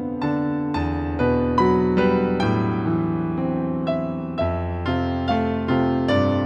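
Background music: gentle piano melody, its notes struck every half second or so and left to ring.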